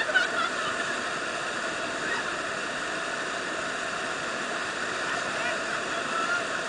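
Whitewater of a river rapid rushing steadily.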